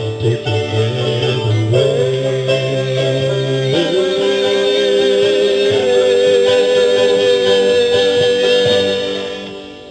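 A band with singing plays the closing bars of a ballad: a long held final note that fades out near the end.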